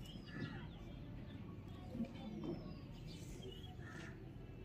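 A few short, faint bird chirps over a low, steady background noise.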